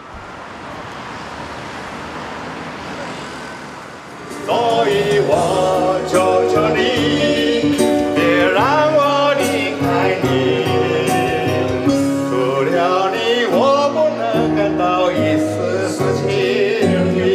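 A man singing a slow Mandarin love song into a handheld microphone over a karaoke backing track, coming in about four seconds in. Before that there is a steady, even rush of noise.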